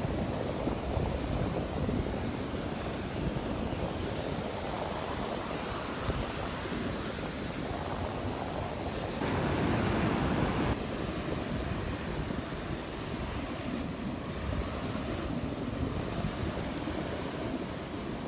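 Rough Gulf of Mexico surf breaking on the beach, a steady wash with one louder wave surging about halfway through, and wind buffeting the microphone.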